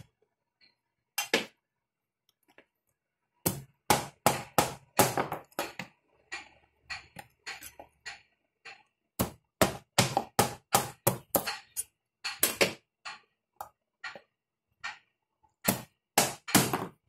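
Knife blade striking a coconut to split the shell and meat apart: sharp knocks in quick runs of several, about three or four a second, broken by short pauses.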